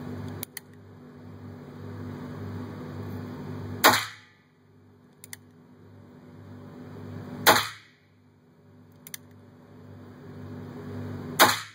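Three shots from a Ruger Single-Six revolver, about three and a half seconds apart, each a sharp crack that rings briefly in a small room. A faint click comes a couple of seconds before each shot.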